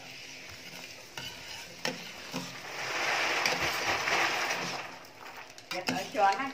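A metal ladle stirring liquid in a stainless steel stock pot: swishing and sloshing, loudest in the middle, with a few light clicks of the ladle against the pot.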